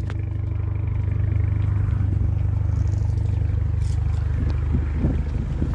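2025 Chevrolet Colorado's turbocharged 2.7-litre four-cylinder engine running steadily through a straight-piped exhaust, a loud even rumble.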